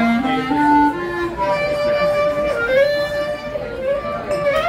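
Clarinet playing a live melody with a small band: a quick rising run of notes, then a long held note that bends down and slides back up several times.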